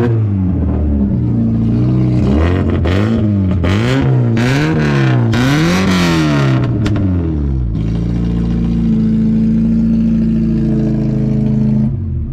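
Car engine revved through a crazy loud exhaust, its pitch rising and falling in several revs, then settling to a steady idle before stopping near the end.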